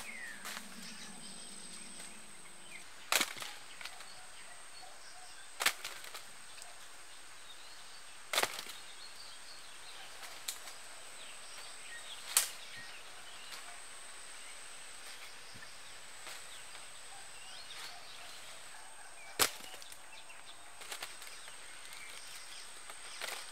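Sharp cracks and knocks from ridged luffa gourds being harvested off vines up in a tree, about five loud ones spaced a few seconds apart with lighter clicks between. A steady high insect drone runs underneath.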